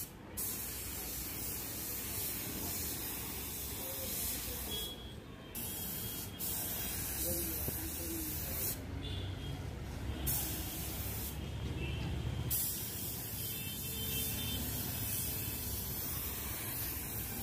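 Gravity-feed paint spray gun hissing as compressed air atomises paint onto a plastic car bumper. It sprays in several passes, with short breaks where the trigger is let go.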